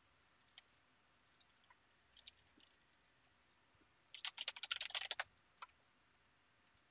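Faint, scattered computer mouse clicks, then a quick run of keyboard typing lasting about a second, starting about four seconds in.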